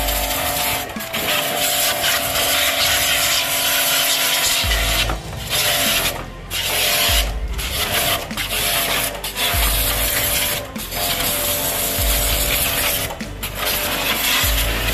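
High-pressure water jet from an AC-service jet pump's spray gun, running at full pressure and hissing as it hits a scooter's rear wheel and bodywork. The spray breaks off briefly several times, with the pump's steady hum underneath.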